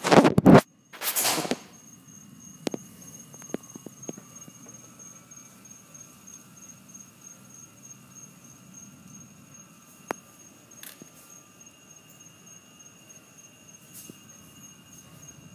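Two loud bursts right at the start, the second about a second in, then a steady high-pitched chirring of night insects with a few faint ticks scattered through it.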